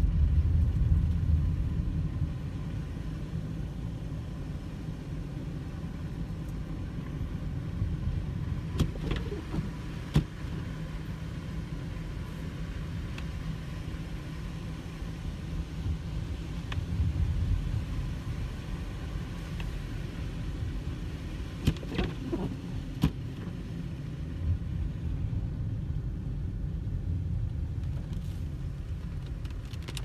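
Steady low rumble of a car's engine and tyres on a snow-covered road, heard from inside the cabin, louder for the first couple of seconds and then settling. A few short clicks and knocks break in now and then.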